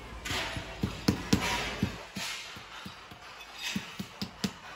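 Rubber mallet tapping a ceramic floor tile to bed it down level: a quick, irregular run of dull knocks, about four a second, the loudest a little over a second in. A brief hissing rustle comes with the first couple of seconds.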